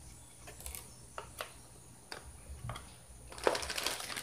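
Cardboard box flaps being opened and handled, with scattered light clicks and taps, then a denser crackle of plastic packaging near the end as the wrapped reel is lifted out.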